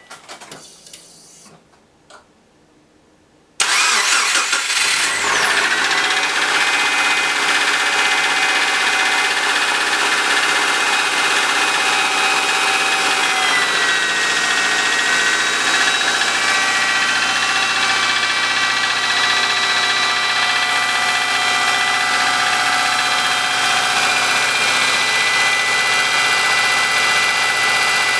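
2003 Subaru Forester's flat-four boxer engine cranked and started from cold at −10 °C, catching after a brief crank and settling into a fast cold idle that drops a little about ten seconds later. It runs with the cold-engine knock that the owner takes for piston slap.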